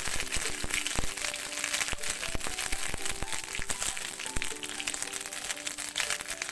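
Background music with a tune of short notes over a dense crackling sizzle, with sharp pops, from pumpkin seeds frying in hot oil.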